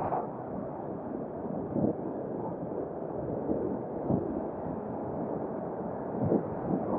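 Wind buffeting an Akaso V50X action camera's microphone while cycling: a steady rushing noise, broken by a few brief thumps about two, four and six seconds in.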